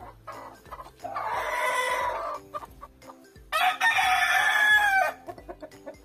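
Rooster crowing twice, each crow about a second and a half long, the second one louder.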